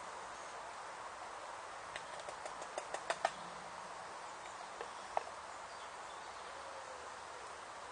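Light metallic clicks and clinks of camp cookware being handled at a stove: a quick run of about ten over a second or so, the last ones loudest, then two more single clicks about two seconds later, over a steady faint hiss.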